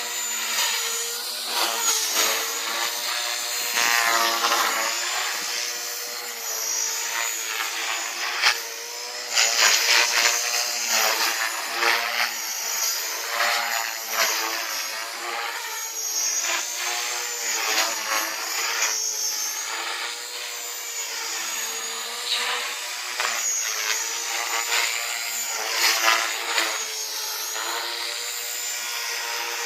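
Wind rushing over the camera's microphone in flight: a steady rushing noise with wavering whistling tones and a few louder gusts.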